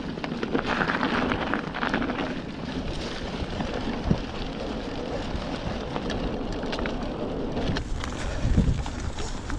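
Mountain bike rolling fast down a dirt trail over dry leaves: steady tyre noise and wind on the microphone, with a few knocks from the bike over bumps.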